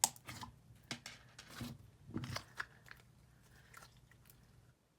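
Hands squishing, pressing and stretching a thick slushy avalanche-texture slime, giving irregular crackles and crunchy pops. The sound stops abruptly near the end.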